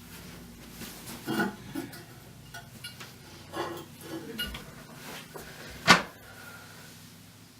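Scattered light knocks and clinks of hard parts being handled at a toilet tank as a touchless flush module and the tank lid are test-fitted, with one sharper knock about six seconds in.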